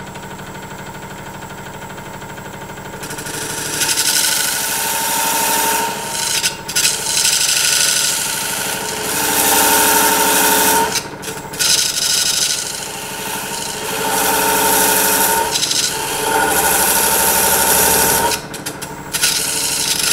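Lathe running with a low hum. From about three seconds in, a thin parting tool ground from a stainless steel butter knife scrapes into the spinning wooden segmented ring, cutting a narrow kerf to part off a thin ring. It cuts in several passes with short breaks.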